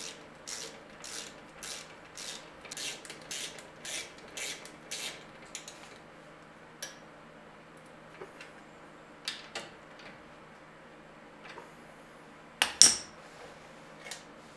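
Metal hand tool clicking against a new brake caliper and its bracket, about two clicks a second for the first six seconds, then scattered light taps and one loud ringing metal clank near the end.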